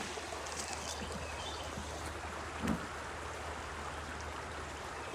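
Creek water running steadily, with one brief thump a little past the middle.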